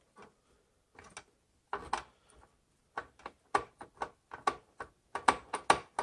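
Phillips screwdriver working a CPU heatsink screw: a run of sharp, irregular clicks, sparse at first and coming quicker and louder from about halfway.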